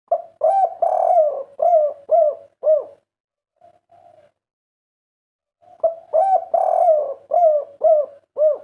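Spotted dove singing: two full song phrases, each a soft opening note followed by about five loud, rounded coos rising and falling in pitch, with a short pair of faint notes in the pause between them.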